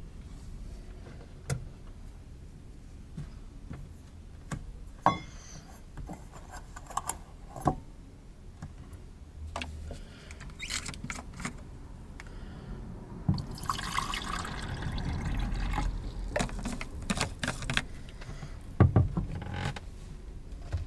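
Liquid being poured for a few seconds about two-thirds of the way through, amid scattered clicks and knocks of things being handled.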